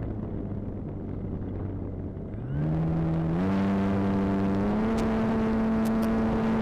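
Volantex Phoenix 2400's electric motor and propeller heard from the airframe in flight: throttled back to a low hum at first, then about two and a half seconds in the throttle comes up in three steps to a steady, louder whine.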